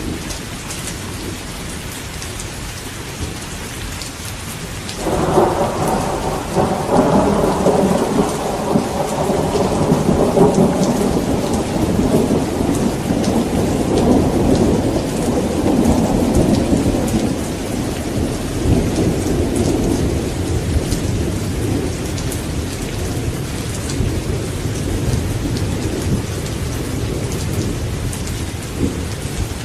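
Steady heavy rain with a thunderclap about five seconds in, breaking suddenly into a long low rumble that slowly fades away over the next fifteen seconds or so.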